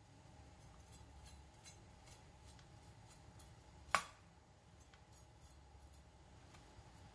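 Kitchen knife cutting winter melon on a plastic cutting board: faint scraping and small clicks as the blade works through the soft seedy centre, with one sharp knock of the blade on the board about four seconds in.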